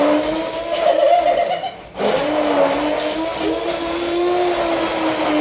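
Hand-held stick blender running in a plastic jug of liquid smoothie mix, a steady motor hum whose pitch wavers slightly as it works. It cuts out for a moment about two seconds in, then runs again.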